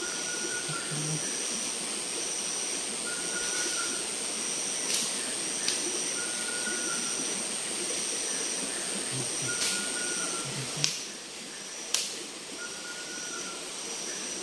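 Tropical forest insect chorus: one steady high buzz and a second high chirring that pulses on and off about once a second, with a short call repeating about every two seconds, over a steady hiss. A few sharp clicks, the loudest near the end.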